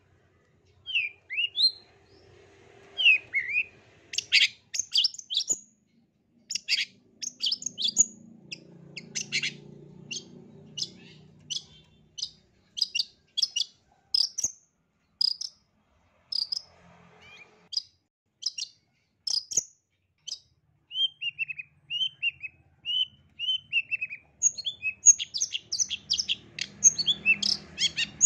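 Long-tailed shrike (cendet) singing a varied, chattering song. A few down-slurred notes open it, followed by scattered sharp, high, clipped notes with gaps between them. After about three quarters of the way there is a run of about eight down-slurred whistles, then a dense rapid flurry of notes near the end.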